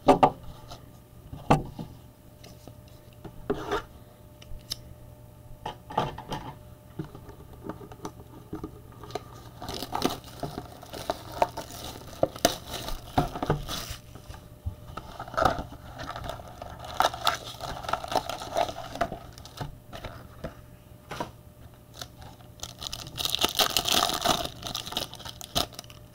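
Foil trading-card pack wrapper crinkling as it is torn open by hand, and cards rustling and sliding as they are handled, in irregular bursts with small clicks. The loudest, brightest crinkling comes near the end.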